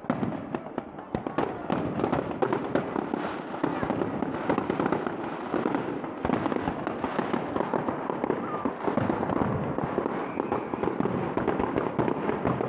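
Display fireworks: aerial shells going off in a dense, rapid barrage of bangs and crackling that keeps up without a pause.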